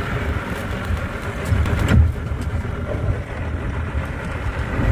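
Small outboard motor running steadily under way, pushing a skiff along, being test-run after it had broken down. A brief louder knock about two seconds in.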